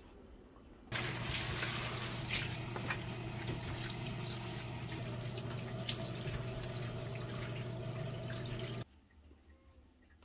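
Water running from a tap into a sink, with small clicks and knocks from things being handled in it. It starts abruptly about a second in and is cut off abruptly near the end.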